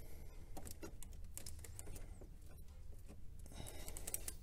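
Faint, scattered small clicks and scratches of hands working among the rubber hoses and wiring in an engine bay, over a steady low hum.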